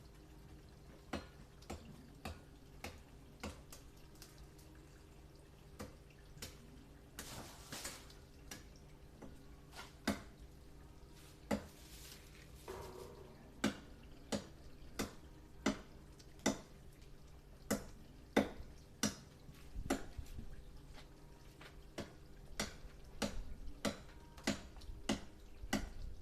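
Machete blade chopping into a tree branch, sharp knocks at roughly one a second, with a brief rustle of leaves about seven seconds in.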